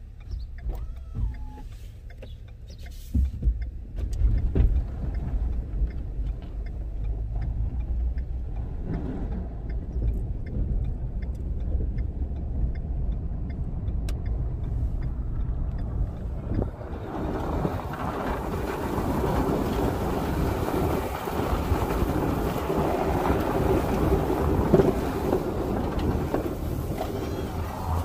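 Ford Super Duty plow truck driving while plowing snow: a steady low engine and road rumble heard inside the cab, with a few knocks early on. About seventeen seconds in it changes to a louder, brighter steady rushing noise heard from outside the truck as it pushes snow with the blade.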